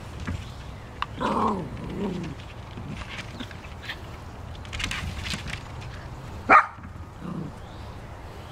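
Small dogs at play: about a second in, a drawn-out call that falls in pitch. About two-thirds of the way through comes a single sharp bark, followed by a short low call, with faint scattered clicks throughout.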